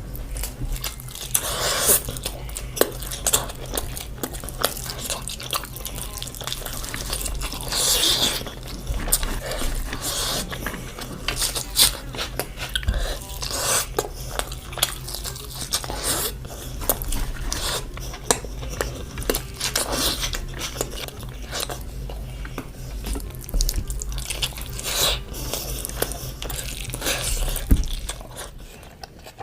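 Close-miked eating sounds: someone chewing and smacking mouthfuls of biryani, with irregular wet clicks and occasional clatter, over a steady low hum. The sounds fade down near the end.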